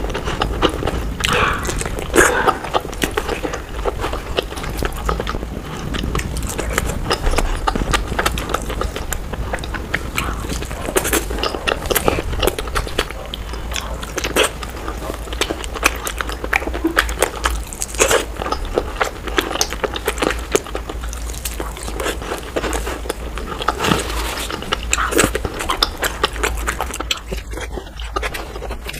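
Close-miked eating sounds: continuous wet chewing, smacking and biting of soft curried eggs, chicken and rice eaten by hand, sped up to double speed.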